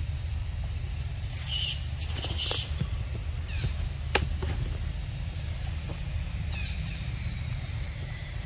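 Macaque biting and eating a ripe mango close up: two short bursts of tearing and slurping noise about a second and a half in, and a sharp click of a bite around four seconds, over a steady low rumble.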